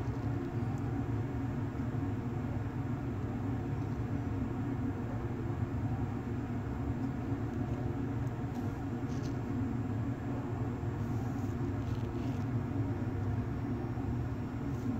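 A steady low mechanical hum with a rumble, with a few faint light clicks.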